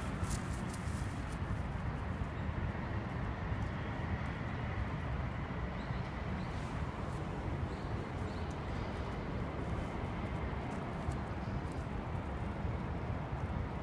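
Steady low outdoor rumble with a few scattered light crunches of steps on dry grass and fallen leaves.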